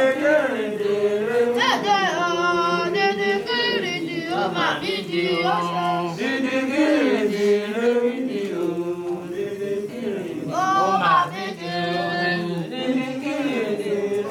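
Voices chanting an Ifa ritual song in Yoruba, in long held notes that slide up and down, with short breaks between phrases.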